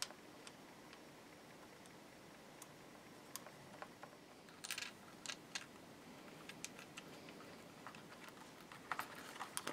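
Faint, scattered clicks and ticks of small metal hardware being handled and fitted against a plastic Stratocaster pickguard, with small clusters about halfway through and near the end.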